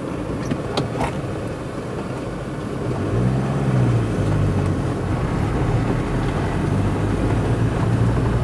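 Engine of a four-wheel-drive vehicle running as it drives over a rough sandy track, heard from on board, with a few sharp knocks and rattles in the first second. About three seconds in, the engine note rises and falls briefly and then holds steady and a little louder.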